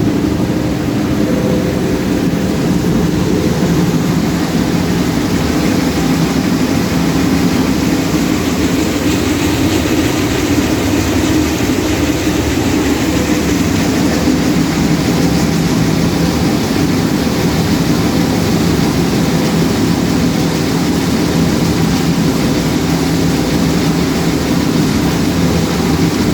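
A steady mechanical hum from a running electric motor or machine, holding an even pitch and level throughout.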